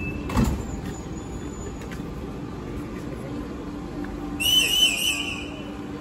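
Train running with a steady low rumble, a short knock about half a second in, and a shrill high squeal lasting about a second near the end.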